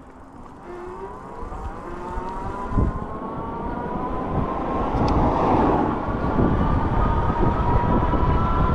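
Haoqi Camel cargo e-bike picking up speed: a whine rises steeply in pitch over the first two seconds, then keeps creeping higher. Wind buffeting the microphone grows louder as the bike goes faster.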